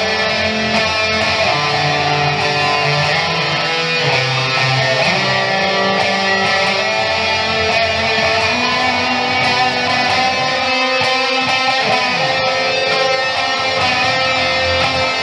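Jackson SLX electric guitar with EMG 81 and 85 pickups, played through a Boss Katana 50 W amp. It picks a continuous line of notes high on the neck, the notes changing often with a quick picked attack on each.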